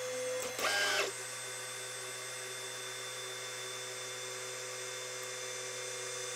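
Robo 3D R1+ 3D printer auto-homing: its stepper motors whine as they drive the print head and axes, with a short louder burst of motor noise just under a second in, then a steady whine.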